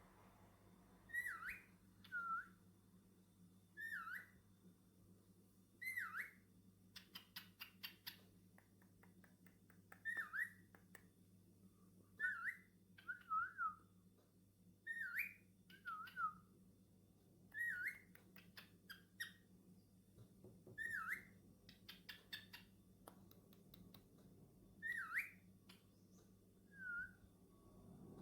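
Cockatiel giving short whistled chirps, one or two at a time about every two seconds, with two short runs of rapid clicking in between.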